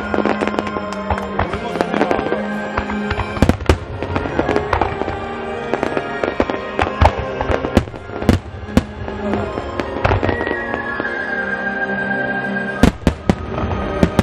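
Fireworks shells bursting in quick, irregular succession, each a sharp bang, with a dense cluster of bangs near the end. Music plays under the bangs.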